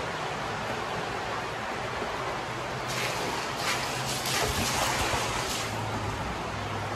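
Shallow water running along the floor of a stone culvert, a steady rushing hiss, with several seconds of louder splashing in the middle as someone wades through it.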